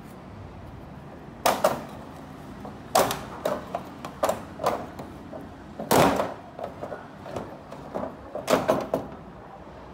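Plastic back cover of an LG LED TV being handled and lifted off, giving a series of sharp plastic clacks and knocks. The loudest come about a second and a half in, around three seconds, at six seconds, and in a quick cluster near the end.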